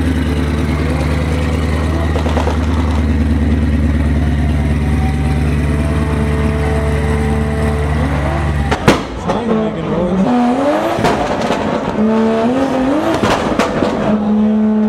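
Cadillac CTS-V's supercharged V8 running steadily as the car pulls away. About nine seconds in the sound changes abruptly to another car's engine being revved several times, each rev rising and falling in pitch.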